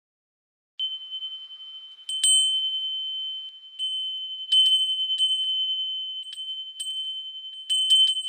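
A high chime ringing on one steady pitch, starting about a second in and struck again and again at uneven intervals, each strike adding a brief bright tinkle over the held tone.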